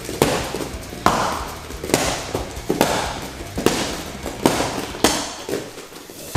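A run of sharp slaps and thuds, roughly one a second, from martial arts punches, kicks and footwork in a fast reaction drill.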